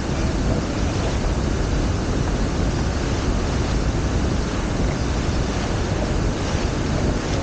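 Steady rush of wind buffeting the microphone, mixed with water rushing along the hulls of a Hobie Tiger F18 catamaran under sail.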